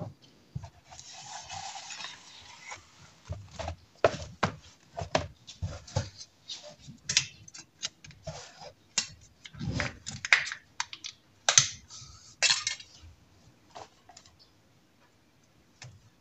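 A plastic milk bottle being opened by hand: a short scratchy rustle about a second in as the screw cap comes off, then a run of small clicks, taps and knocks as the foil seal is picked and peeled from the neck and the bottle is handled on the wooden counter.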